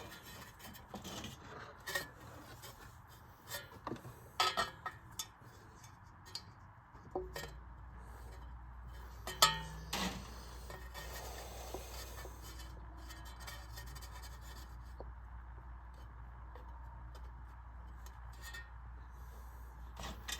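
A screwdriver scraping and clicking against a fan blade hub and motor shaft in irregular, scattered strokes as it pries at the stuck blade. A low steady hum comes in about seven seconds in.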